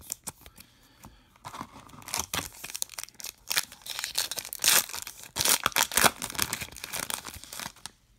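A trading-card pack wrapper being crinkled and torn open by hand. The crackling tearing starts about a second and a half in, is loudest around the middle, and stops just before the end.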